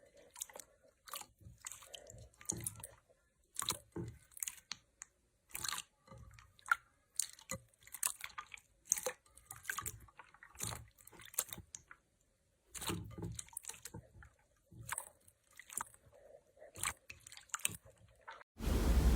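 Slime being squeezed and poked, making irregular crackles and wet pops. Near the end a loud, steady hiss cuts in suddenly.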